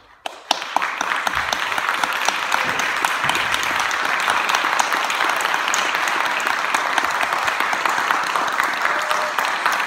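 Audience applauding: a short hush, then dense, steady clapping that breaks out about half a second in.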